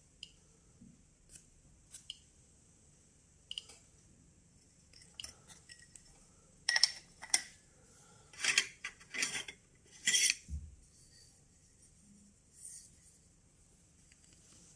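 Metal Geiger-Müller counter tubes and alligator clips being handled on a desk: a few scattered light clicks, then a cluster of metallic clinks and scrapes in the middle as a tube is unclipped and another picked up.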